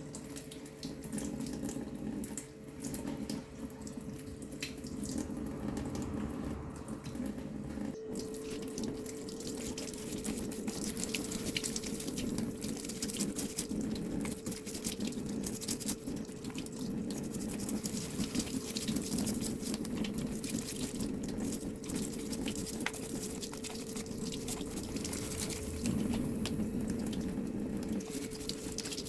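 Water running steadily, with a faint steady whine under the rush that shifts slightly about eight seconds in.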